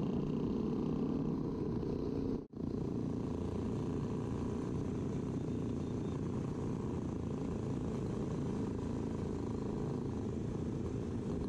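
An old motorcycle's engine running steadily under way, mixed with wind noise, heard from the bike itself. The sound cuts out for an instant about two and a half seconds in.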